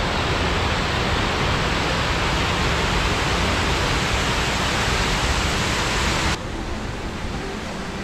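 Water rushing steadily over a low river dam's spillway. About six seconds in, the rush drops suddenly in level and sounds duller.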